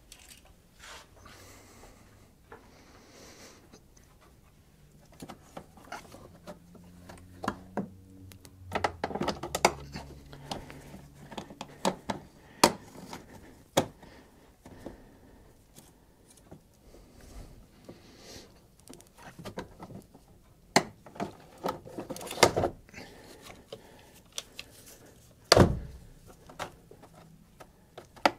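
Irregular clicks, knocks and thuds of car parts being handled and fitted into an engine bay during reassembly, with a few brief scraping slides in the first third and several sharper knocks later on.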